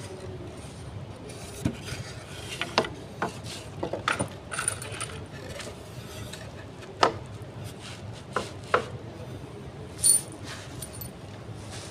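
Wooden chair parts knocking and clicking as an arm-rest side panel is handled and fitted into place. Several sharp knocks come at uneven intervals, and a couple of brief metallic clinks come about four and a half and ten seconds in.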